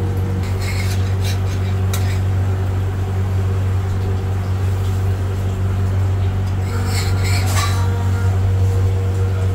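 A metal spatula scrapes and clinks on a flat dosa griddle as the dosas are lifted and rolled. There are a few short scrapes about half a second in and near two seconds, then a longer run of them around seven seconds, over a steady low hum from kitchen machinery.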